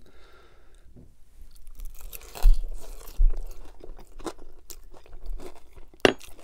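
Close-miked chewing of a mouthful of poutine (gravy-soaked fries and cheese curds), with wet mouth clicks and smacks and a couple of low thumps. A sharp click comes near the end.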